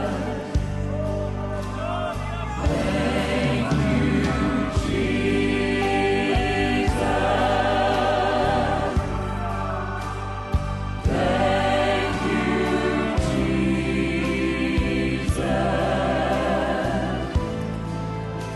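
Choir and congregation singing a slow gospel worship song in long held notes with vibrato, over sustained instrumental accompaniment.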